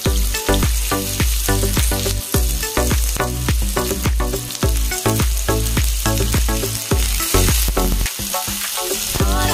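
Sliced onions sizzling in hot oil in a frying pan while a wooden spatula stirs them, under background music with a steady beat.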